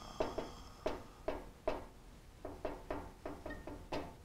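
Dry-erase marker writing on a whiteboard: a quick run of short, sharp strokes, about three a second, each with a brief squeaky ring.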